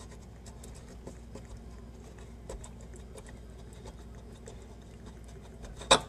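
A Delta single-handle faucet's spout being twisted and worked loose on the faucet body: faint scraping and small clicks of metal and rubber seals. A single sharp knock comes near the end.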